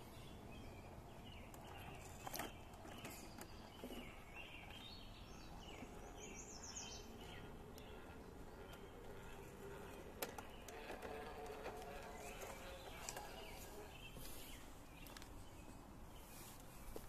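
Quiet outdoor ambience with small birds chirping, and a few faint clicks and knocks.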